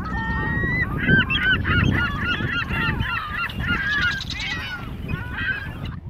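A crowd of seabirds calling at once: many short, overlapping calls, some rising or falling in pitch, over a low rumble.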